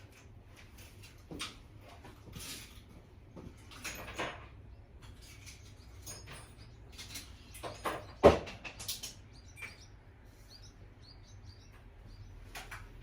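Hand tools and loose bolts clinking and clattering on metal during engine teardown work, a string of short scattered knocks with one loud clank about eight seconds in.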